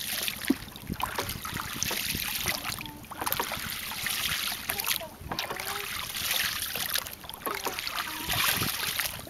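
Oar strokes from a small rowed boat: the blade dips and pulls through the water with splashing that comes in surges about every two seconds, and the sound of water moving in between.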